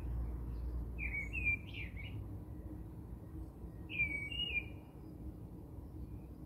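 Birds chirping: short, warbled, squeaky phrases about a second in and again about four seconds in, with fainter high calls further off, over a low background rumble that eases after the first second or two.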